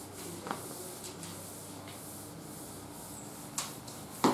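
Board eraser rubbing across a chalkboard, wiping off chalk writing, with a few light taps and a louder knock near the end.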